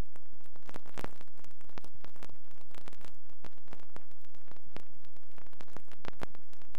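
Steady static hiss full of irregular crackles and clicks, a noise-only soundtrack with no sound from the crane or the building site.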